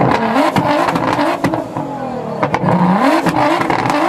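A car engine is revved in short repeated blips, about three in a few seconds, its pitch climbing sharply and falling back each time. The exhaust gives off sharp pops and cracks between the revs.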